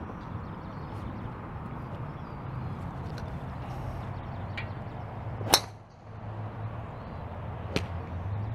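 A golf driver strikes a teed ball once, about five and a half seconds in: a single sharp hit with a brief ring. Steady background hum runs throughout, and a fainter click follows about two seconds after the hit.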